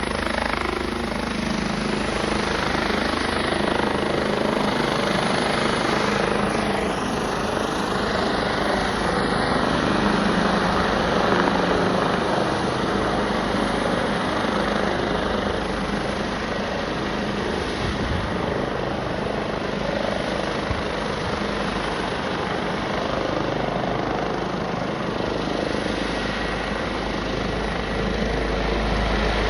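Helicopter flying low overhead, its rotor and engine noise loud and steady throughout.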